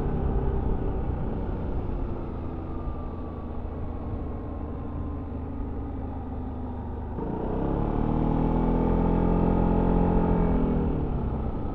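Yamaha XMAX 300 scooter's single-cylinder engine through its stock exhaust, heard on board: for the first seven seconds the throttle is mostly closed and the engine note is low under a steady rumble. Then the throttle opens, the engine note rises and holds, and it eases off near the end.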